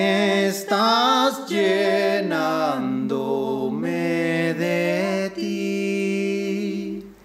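Unaccompanied singing: a slow melody of long, held and sliding notes with brief breaths between phrases, stopping just before the end.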